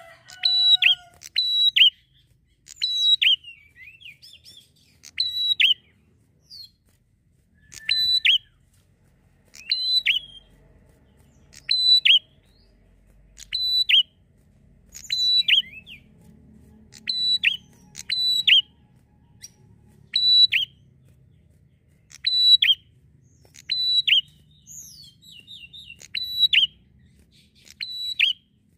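Prinia (prenjak) singing: short, sharp, high chirping phrases repeated about every one to two seconds.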